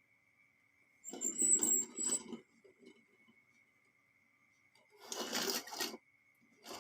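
Marbles rolling and clattering down a wooden marble run, in two bursts of about a second each, the second near five seconds in.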